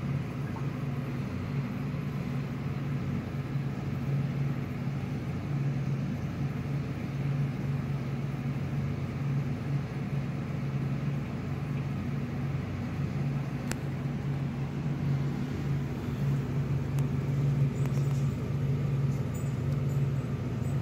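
Steady low hum of a reef aquarium's water pumps, with the sound of water circulating; a single faint click about two-thirds of the way through.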